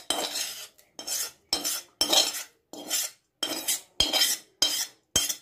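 A spoon scraping and knocking against a metal pan in repeated strokes, about two a second, as a fried onion, tomato and garlic mix is scraped out of the pan into a cooking pot.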